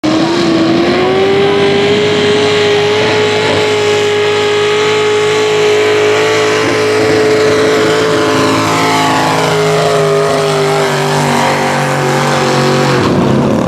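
Chainsaw engine running at high revs, holding a steady pitch, which sags slightly near the end.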